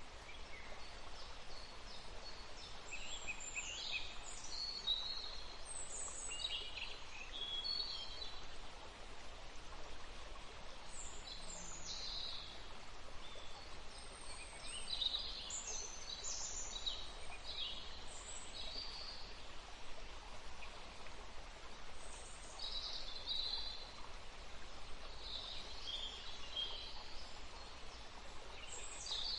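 Steady rush of a flowing river, with birds chirping and calling on and off over it.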